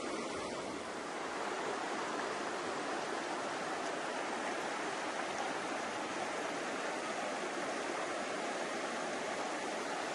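Falling water rushing, a steady, even hiss whose tone shifts slightly about a second in.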